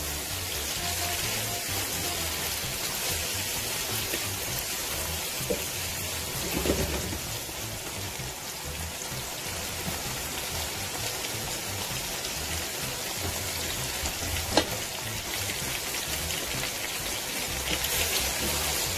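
Chicken pieces frying in hot oil in a karahi, a steady sizzle as they brown, with a spatula stirring and knocking against the pan now and then, one sharp knock about two-thirds of the way through.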